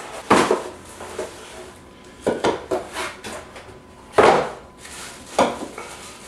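Unpacking a small cardboard box: a plastic storage container is handled and set down on a tiled counter, giving several sharp clattering knocks, the loudest about four seconds in, with rustling between them.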